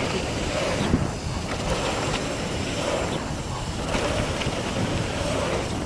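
Wind rushing over the camera microphone with steady trail rumble as a mountain bike rides a downhill trail.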